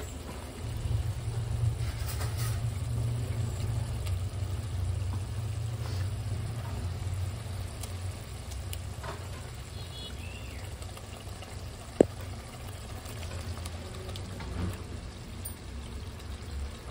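Masala gravy bubbling in a metal pan on the stove while raw chicken pieces are dropped into it by hand, over a steady low rumble. A single sharp click sounds about twelve seconds in.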